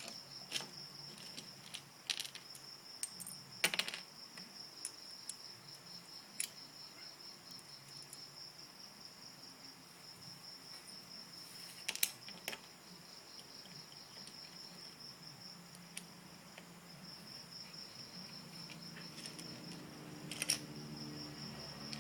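Plastic Lego bricks clicking and clattering now and then, with the loudest clicks about four seconds in and about twelve seconds in. A steady high-pitched chirring trill runs underneath and drops out briefly past the middle.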